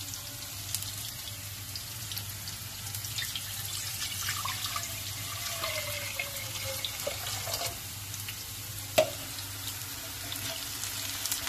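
Water poured in a steady stream into an aluminium saucepan for soup stock, with a tone that slides down in pitch midway. A single sharp knock comes about nine seconds in.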